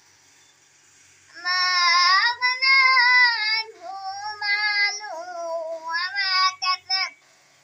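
A young boy reciting the Quran in a melodic chant, with long held notes that glide up and down. It starts about a second and a half in and breaks briefly midway.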